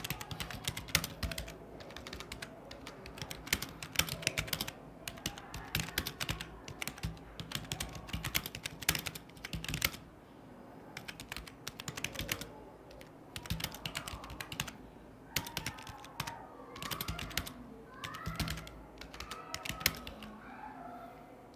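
Fast typing on a computer keyboard: quick, irregular runs of key clicks broken by a couple of brief pauses.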